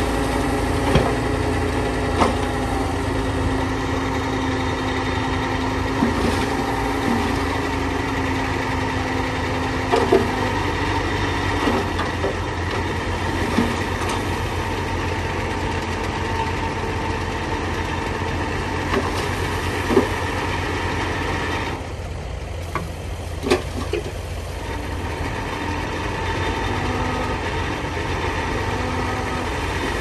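Heavy earthmoving machinery's diesel engine running steadily, with sharp metallic clanks at irregular intervals of a few seconds.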